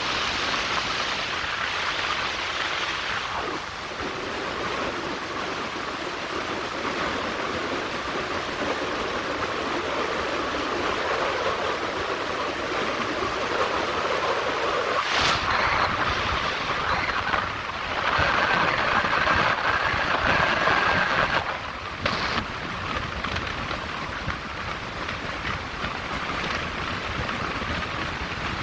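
Steady rushing road and wind noise of a car on the move, with a short sharp click about fifteen seconds in and another a few seconds later.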